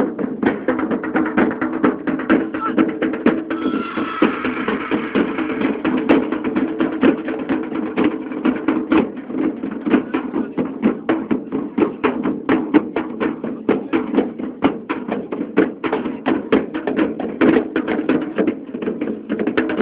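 Fast, steady percussion beat of several sharp strokes a second, played live in a dense crowd, with a steady mass of voices underneath.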